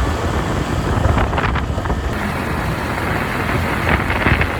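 Wind buffeting the microphone over a steady low rumble, with no speech.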